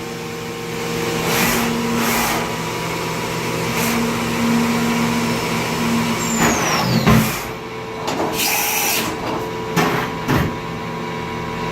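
Mori Seiki NH4000DCG horizontal machining center running with a steady machine hum and swelling whir. About six seconds in, a high whine falls away, typical of the spindle winding down from speed. A short burst of air hiss follows, and there are a few clunks near the end.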